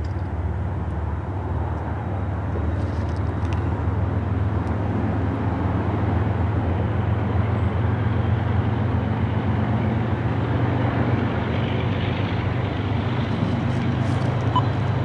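Diesel locomotives of an approaching freight train: a steady low engine drone that grows slightly louder as the train nears.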